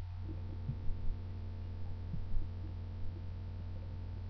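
Steady electrical mains hum on the recording, a low drone with a ladder of higher overtones, and a couple of faint soft knocks.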